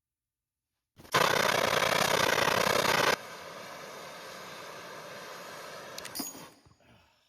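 Handheld electric drill running at full speed for about two seconds, then cutting abruptly to a much quieter steady whir for about three seconds, ending in a few clicks as it fades out.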